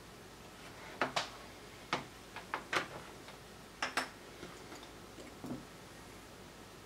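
Tools and a circuit board being handled on a soldering bench: about eight sharp clicks and taps in the first four seconds, then a fainter knock.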